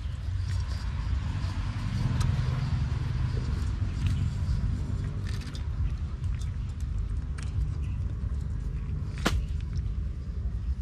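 A steady low rumble, with light rustling and scattered clicks as a nylon mesh fish-trap net is handled over a metal bucket, and one sharp click about nine seconds in.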